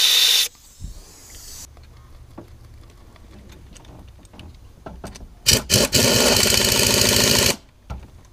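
Compressed-air blowgun blowing coolant out of thermostat-housing bolt holes, clearing them so the bolts cannot lock up on trapped coolant. A hiss cuts off about half a second in, then two short puffs and a steady blast of about a second and a half near the end.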